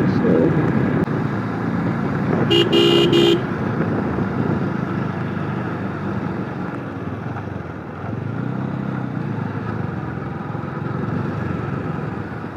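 Motorcycle on the move: steady engine and road noise, with a vehicle horn honking once for under a second about two and a half seconds in.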